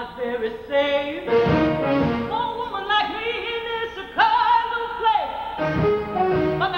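Live orchestra music with operatic singing: a high voice with wide vibrato and no clear words, holding one long note a little past the middle.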